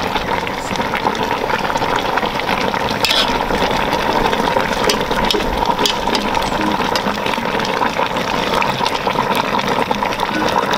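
A steaming pot of vegetables simmering and bubbling as a metal spoon stirs it, with a few light clinks of the spoon against the pot.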